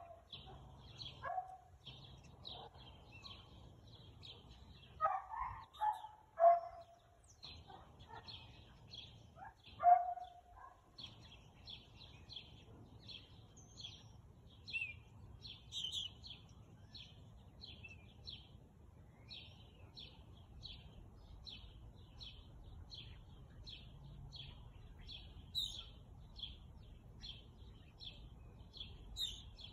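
A husky barking and yelping off and on through the first ten seconds or so, the loudest calls about six and ten seconds in. A small bird chirps the same short note over and over, about twice a second, throughout.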